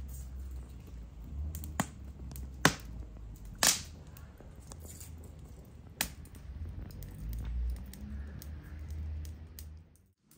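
Four sharp, separate knocks or clicks spread over about four seconds, the third a little longer than the others, over a steady low rumble. The sound cuts off abruptly near the end.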